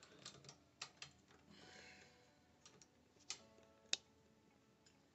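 Faint, scattered clicks and light metallic taps as a brass shower valve stem and its fittings are handled at the wall, the sharpest tap about four seconds in.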